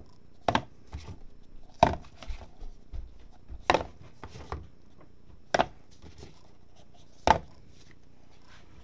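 Small cardboard trading-card boxes being set down and stacked on a playmat by gloved hands: a series of sharp knocks, about five loud ones, with lighter taps between.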